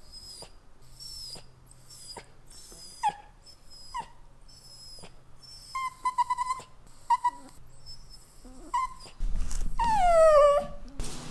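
Italian greyhound whining and crying in a string of short, high-pitched whimpers, about one a second. Near the end comes a louder, longer whine that falls in pitch, with rustling underneath.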